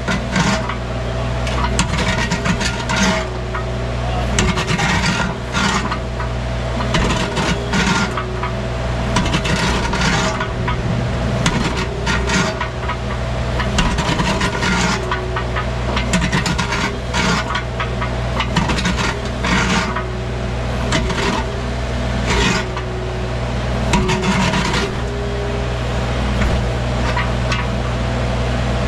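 Wacker Neuson mini excavator's engine running steadily under load while its bucket scrapes, knocks and drags through dirt and debris, with repeated irregular scraping and clattering strokes.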